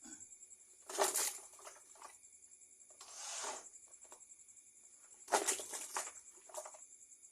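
Raw chicken pieces in marinade tossed and mixed by hand in a basin: four wet swishes about every two seconds, the first and third loudest.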